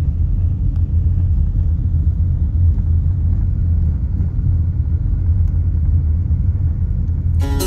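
Steady low rumble of a moving car: road and wind noise from the vehicle. Acoustic guitar music comes in just before the end.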